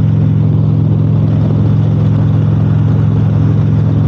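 Motorcycle engine running steadily at highway cruising speed, a constant low drone, with wind and road rush over it.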